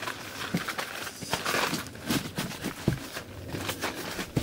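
HABUTWAY folding camping cot's fabric and metal frame being pressed and handled to snap the legs into place: irregular rustling and crinkling with small scattered clicks.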